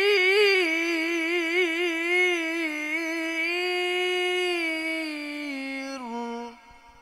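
A young male Qur'an reciter's voice in tilawah style, drawing out a single long ornamented note with rapid wavering turns, then holding it steady before it steps down in pitch and breaks off about six and a half seconds in.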